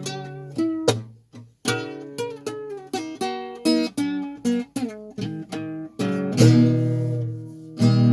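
Acoustic guitar fingerpicking a ragtime tune, a quick run of single plucked notes, then two ringing chords near the end.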